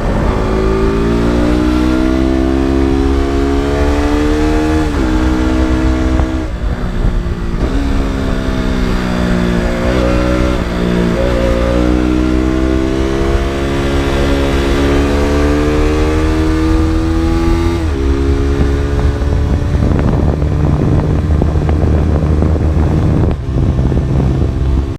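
KTM RC 200's single-cylinder four-stroke engine and exhaust pulling through the gears while riding, the pitch climbing and then breaking at shifts about five seconds in and again near eighteen seconds, with brief easing off in between. In the last few seconds it settles into a lower, rougher rumble.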